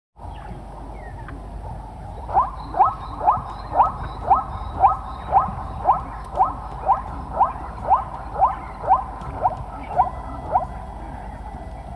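An animal calling in a steady series of short, upward-sweeping calls, about two a second, starting about two seconds in and stopping near the end, over a steady low background hum.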